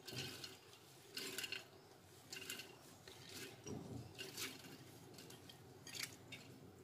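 Washed toor dal (split pigeon peas) being pushed by hand out of a bowl into a pressure cooker: faint, scattered wet scrapes and soft taps of the lentils and fingers against the bowl and the cooker.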